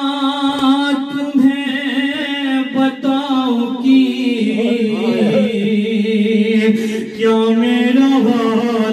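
Unaccompanied men's voices chanting a noha, an Urdu lament, with a lead voice on microphone and long, drawn-out held notes.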